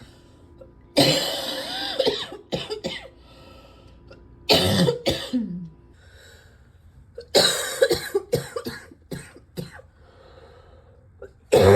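A person's deep morning coughing, in four bouts of several coughs each, with quieter breaths in between; the last bout starts near the end.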